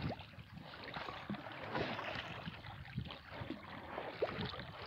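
Oars of an inflatable PVC rowing boat dipping and pulling through the water: repeated splashing strokes with water rushing along the hull.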